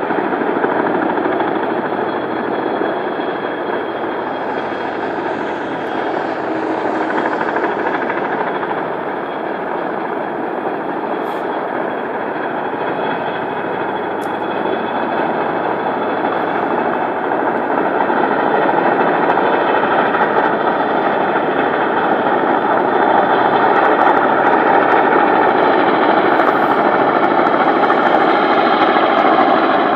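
Firefighting helicopter flying, its engine and rotor blades beating steadily. It grows louder in the last third as it comes closer.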